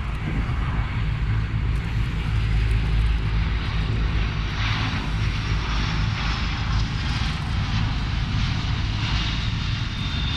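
Fixed-wing aircraft engine running steadily, with a thin high whine coming in near the end.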